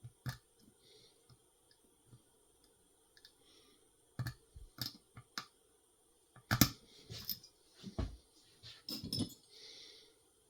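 Irregular, sharp metallic clicks and ticks of a lock pick and tension tool working inside a Schlage Primus Everest cylinder, a six-pin lock with a sidebar. The clicks are sparse at first and grow denser and louder past the middle.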